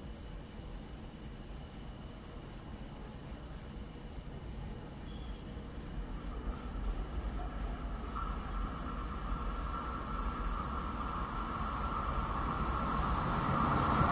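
Crickets chirping in a steady, even pulse. From about halfway through, the noise of an approaching train rises beneath them and keeps growing louder toward the end.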